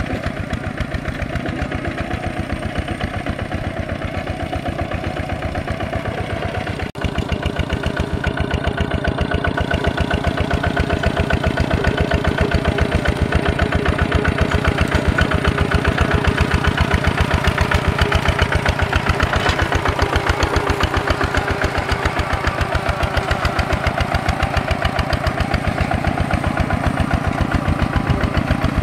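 Single-cylinder diesel engine of a two-wheel walk-behind tractor running steadily with a rapid, even chugging as it pulls a plow through the soil. There is a brief dropout about seven seconds in, after which the engine is louder.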